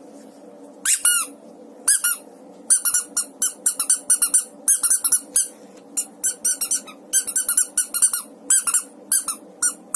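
Rubber squeaky mouse toy squeezed by hand, squeaking: two single squeaks about a second apart, then quick runs of short squeaks, several a second, until near the end.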